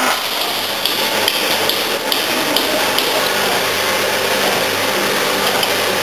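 A screw mixer for dry bulk products running, driven by an electric motor through an NMRV worm gear reducer: a steady mechanical drone with a faint hum. Several sharp metallic clicks come in the first half.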